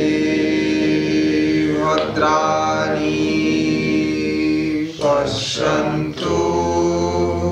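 Vocal chanting of a Sanskrit mantra in long, drawn-out held tones, with short breaks about two, five and six seconds in.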